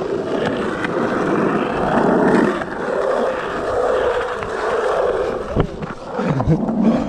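Skateboard wheels rolling over the pump track's rollers, a steady grinding rumble that swells and fades, with a couple of sharp clacks near the end.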